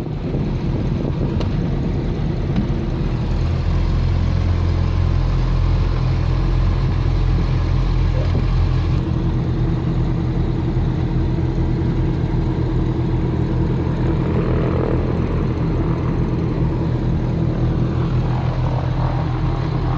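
Steady low engine drone heard from inside a moving vehicle's cabin.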